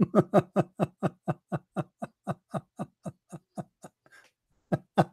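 A man laughing: a long run of short, even 'ha' pulses, about four a second, fading as it goes. It breaks off briefly and starts again loudly near the end.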